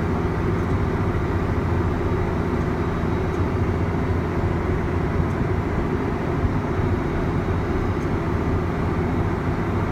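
John Deere 8245R tractor running steadily at road speed, towing two loaded gravity wagons: an even engine and road drone, heaviest in the low range, with no change.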